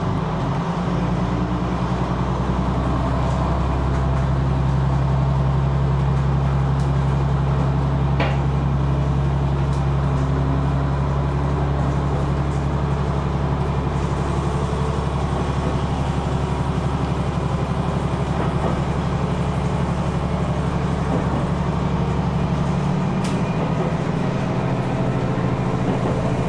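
Diesel railcar engine running under power, heard from inside the train, a steady low drone over the noise of wheels on rail. The engine note shifts about a second in, and its deepest part falls away near the end.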